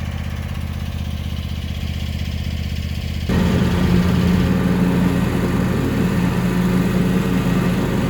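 John Deere X350 riding mower's Kawasaki engine running steadily with the mulching deck's blades turning while mowing. About three seconds in the sound suddenly gets louder and harsher.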